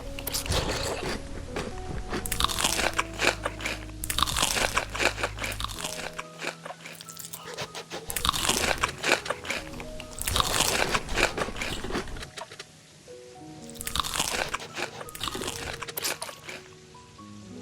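Close-miked crunching of crisp food being bitten and chewed, in repeated bursts of crunching with short pauses between, over background music.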